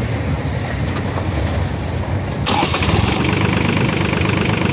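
Swaraj Target 630 tractor's three-cylinder DI diesel being cranked on its electric starter, then catching about two and a half seconds in and running steadily.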